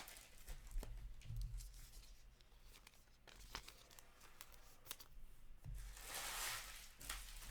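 Hockey card pack wrappers crinkling and tearing, with short clicks of cards being handled, and a longer rip about six seconds in.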